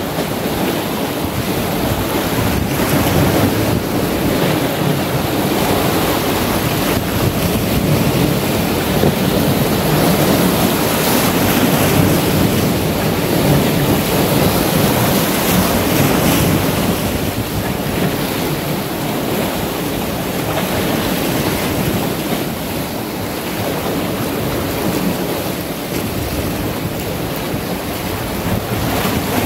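Small sea waves washing and breaking around shoreline boulders, swelling and easing every few seconds, with wind buffeting the microphone.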